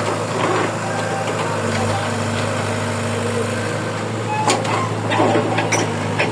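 Heavy diesel engine of an excavator or tractor running steadily at a low drone, with a few sharp knocks in the second half.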